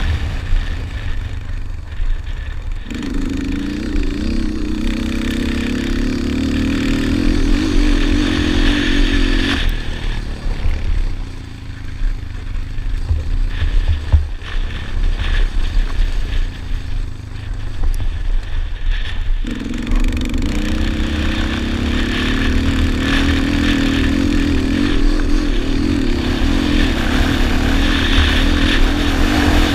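Yamaha Raptor 250 quad's single-cylinder four-stroke engine at race pace. It is held on the throttle for several seconds, eases off through the middle stretch, then is held on the throttle again for the last ten seconds. Wind buffets the helmet-mounted microphone underneath.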